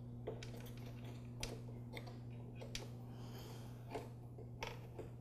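Faint, scattered light clicks and taps of hard plastic parts being handled as a replacement tap is fitted onto the housing of a De'Longhi super-automatic espresso machine, about seven in all at irregular intervals.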